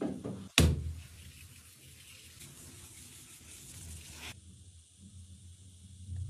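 A hand tool scraping and rubbing over a plastered wall, heard as a steady hissing scrape that cuts off suddenly about four seconds in. A sharp, loud sudden noise comes about half a second in.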